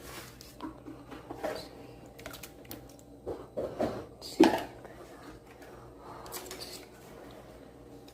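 Kitchen handling sounds as raw chicken pieces go into a bowl of marinade: scattered light knocks and wet rustles, with the loudest knock about four and a half seconds in.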